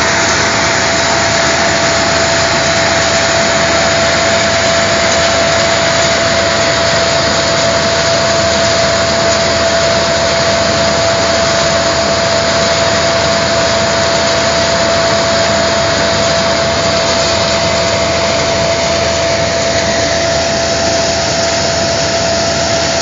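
Mobile coffee-cleaning machine running steadily: a loud, even machine noise with a constant high whine.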